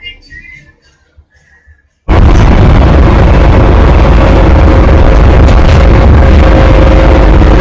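Loud, distorted rumble of a city bus driving, heard from inside the bus, with a steady engine drone. It cuts in abruptly about two seconds in, after a quiet start with a few faint clicks.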